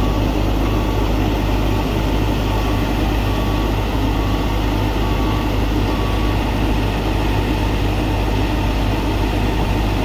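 Steady diesel engine noise from a Banglamark MS-1200 combine harvester and the tractor standing beside it, the harvester's engine running at high revs. A faint short beep repeats several times through the first half.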